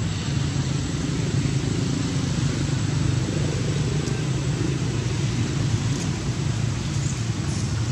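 A steady low rumble, unbroken and fairly loud throughout.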